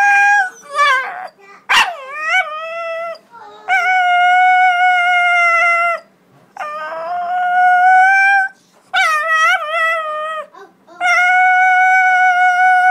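A dog howling in about six long, drawn-out, high-pitched howls, some held level and some wavering up and down, with a sharp yelp at the start of the second. The howls sound like singing or talking.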